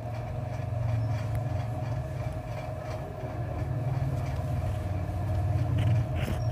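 Metal lathe running with a steel bar spinning in its chuck: a steady low motor-and-drive hum with a steady higher whine over it.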